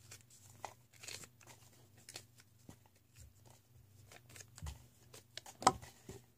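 Faint rustling and scattered small clicks of things being handled close to the microphone, with one sharper knock about five and a half seconds in.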